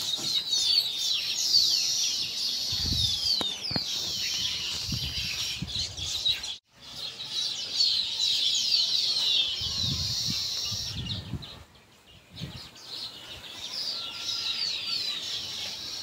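Zebra finches chirping and calling in quick, overlapping high notes, many of them sliding downward, with soft low thuds now and then. The sound cuts out briefly about six and a half seconds in and goes nearly quiet around twelve seconds.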